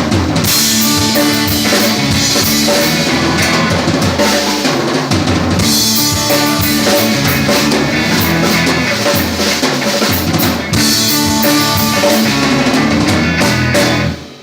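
Live band playing an instrumental passage with a full drum kit pounding under it; the music stops abruptly right at the end.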